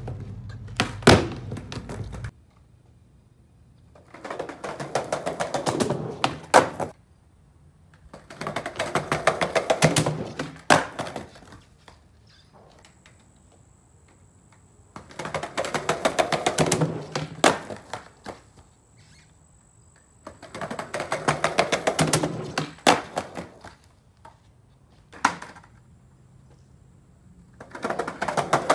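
Skateboard wheels rolling across concrete pavers, clattering quickly over the joints, in about five runs of a few seconds each, with quiet gaps between them. A few sharp slaps come from the board popping and landing on ollie attempts.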